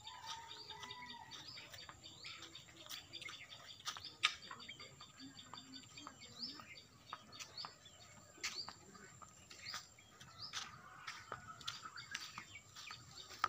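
Birds chirping: a steady stream of short, high chirps, with a sharp tick about four seconds in.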